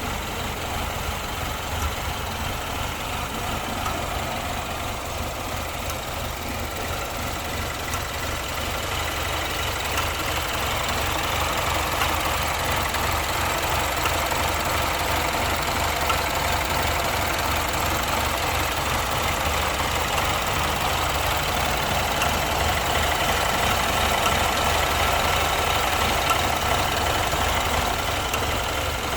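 2015 BMW engine idling with a misfire.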